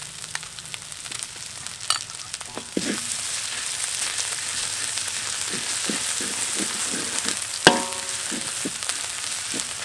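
Curry paste sizzling as it is stirred into dry-toasted spices in a hot metal wok. The hiss grows louder about three seconds in, a metal spatula scrapes repeatedly across the pan, and it strikes the wok once with a sharp ringing clang near the end.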